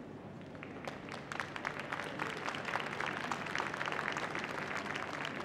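Audience applauding, the clapping starting about a second in and continuing.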